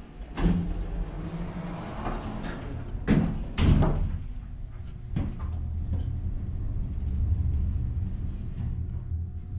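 1970s Otis traction elevator: the car doors slide shut with a few knocks and thuds, then a low steady rumble as the car starts to travel.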